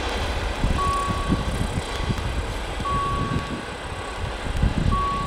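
Railroad level-crossing warning signal beeping: one steady high beep about every two seconds, three times. The crossing is still in its warning cycle after the train has cleared. Under it is a loud, uneven low rumble.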